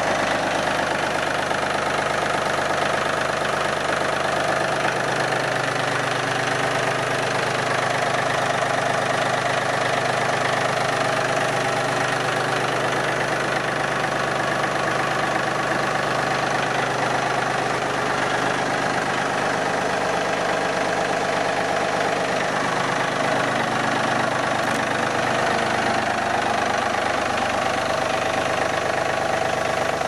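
Yanmar US330 tractor's diesel engine idling steadily.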